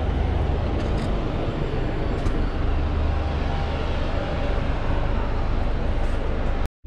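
Steady city street traffic noise with a deep low rumble, cutting out abruptly near the end.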